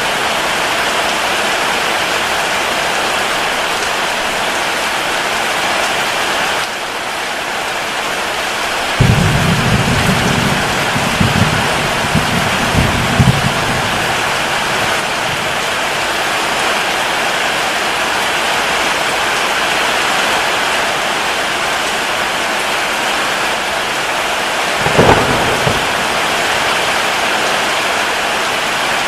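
Steady heavy rain falling, with thunder rumbling in several rolls about nine seconds in and a shorter, sharper thunderclap near the end.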